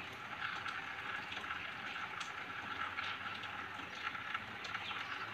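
Rain falling: a steady hiss with scattered sharp ticks of drops.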